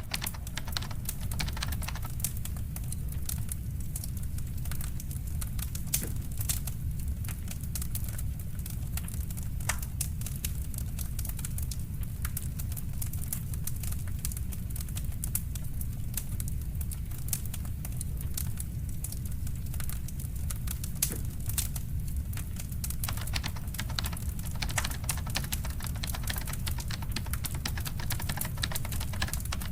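Fireplace fire crackling: frequent, irregular sharp pops and snaps over a steady low rumble of the burning fire.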